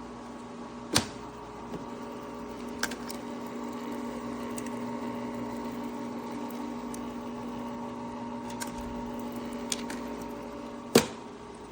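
COWSAR countertop nugget ice maker running with a steady hum, broken by a few sharp clicks or knocks: once about a second in, again near three seconds and louder near the end.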